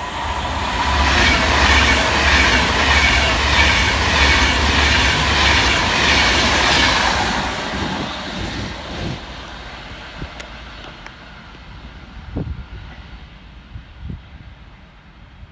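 Class 390 Pendolino electric train passing at speed, its wheels clattering rapidly and evenly over the rail joints. The noise is loudest for the first several seconds and then fades away over the second half.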